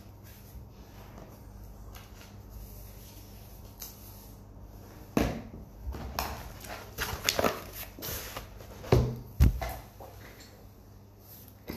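Handling noise on a phone's microphone: a series of knocks and rubs, the loudest two about half a second apart a little before the end, over a faint steady hum.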